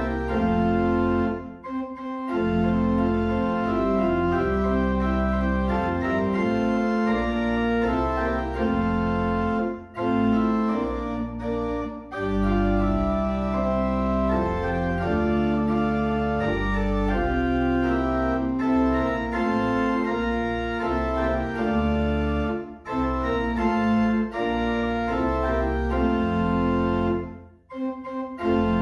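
Organ playing sustained chords in phrases, with brief breaks between the phrases like the lines of a hymn.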